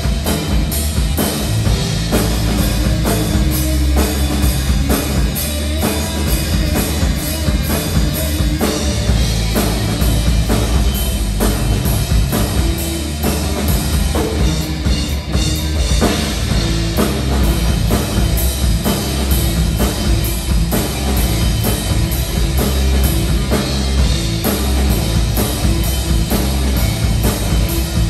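A live rock band playing: distorted electric guitar, bass guitar and drum kit, driven by a steady drum beat.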